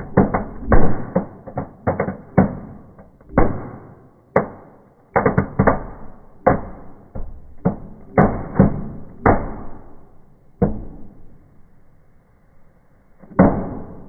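Small fireworks, fountains among them, going off: a rapid, irregular run of sharp bangs and crackling pops that thins out after about ten seconds, with one more loud bang near the end.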